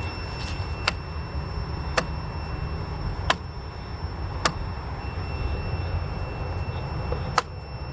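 Portable jump-starter pack, drained, giving short sharp beeps about once a second over a steady low rumble, the sign that its charge is used up.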